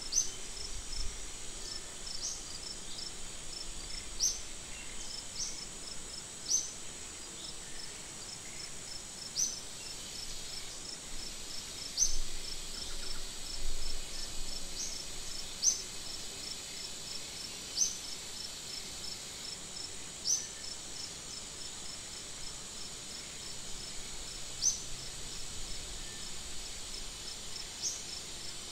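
Steady high-pitched insect chorus, with a fast pulsing trill and a short sharp high chirp every couple of seconds.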